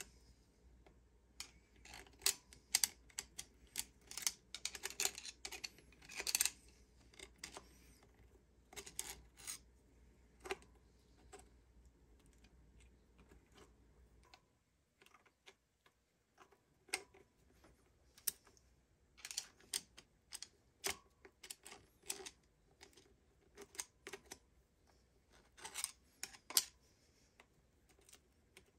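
Irregular light metallic clicks and clinks of a cam chain and its sprocket being handled and slipped onto the camshaft of a Honda XR200 engine, coming in scattered clusters.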